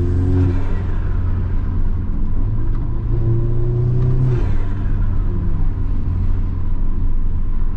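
Turbocharged car engine with its diverter valve removed, accelerating hard: the engine note climbs briefly at the start, then climbs again for about two seconds and drops off about four and a half seconds in. Loud turbo and intake noise comes from the open diverter valve port.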